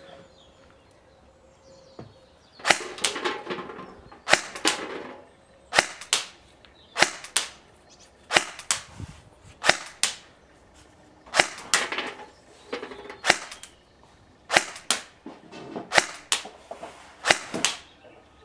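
BO Dynamics LT595 Shield electric airsoft rifle (AEG) firing about a dozen separate single shots, roughly one every second or so, each a sharp crack, the first coming nearly three seconds in.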